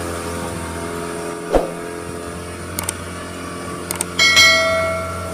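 Outboard motor running steadily as it pushes a small boat along. About a second and a half in there is a single knock, and near the end a couple of clicks followed by a bright ringing chime from a subscribe-button animation.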